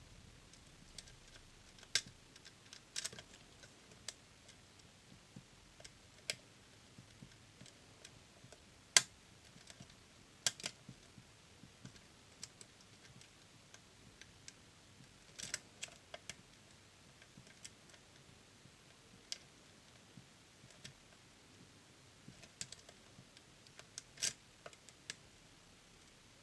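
Irregular, sparse sharp metallic clicks and ticks of a lock pick and tension tool working the pins inside a DOM System D lock, with a few louder clicks among the faint ones.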